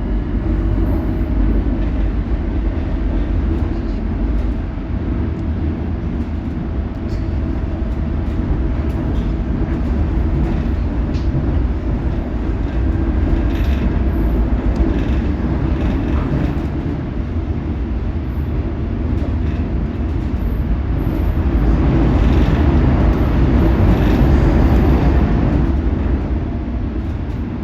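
London Underground subway train running fast in a tunnel, heard from inside the carriage: a steady, loud rumble and rattle of wheels on rails. It grows louder and harsher for several seconds about three-quarters of the way through as the train takes the curves.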